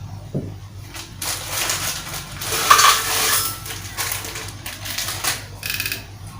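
Crunching and clattering of dry instant noodles and other bait ingredients in a kitchen blender jar, with sharp knocks among irregular rattling.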